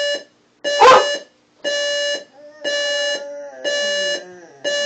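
Alarm clock beeping about once a second with a harsh electronic tone. A dog barks once about a second in, the loudest sound, then lets out a drawn-out howl that falls in pitch under the beeps near the end.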